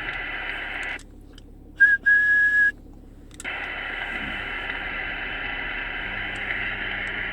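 CB radio receiving on single sideband: static hiss from its speaker cuts out about a second in while a station comes on. The station gives a short steady whistle tone, then a longer one, and the static hiss returns a couple of seconds later.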